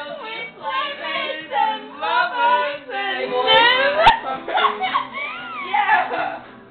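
People's voices, high and swooping in pitch with no clear words, with a sharp click about four seconds in.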